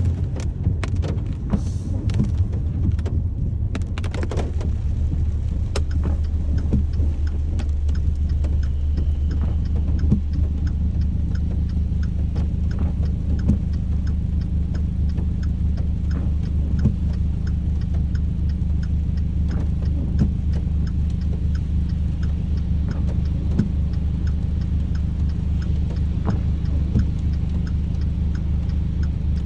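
Rain heard from inside a vehicle: a steady low rumble with scattered drops ticking sharply on the body.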